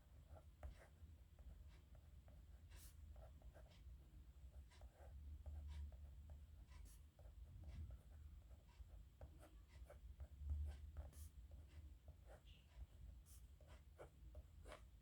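Pen nib scratching faintly on paper in short, irregular strokes and ticks of handwriting, over a low steady rumble.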